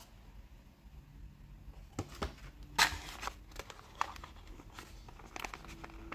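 Scattered light clicks and crinkles of a thin white plastic packaging tray being flexed as a die-cast model fire engine is worked out of it, with one sharper click about three seconds in.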